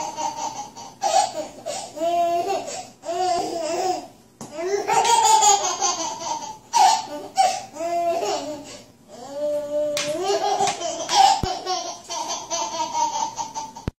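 Baby laughing and squealing in repeated high-pitched bursts.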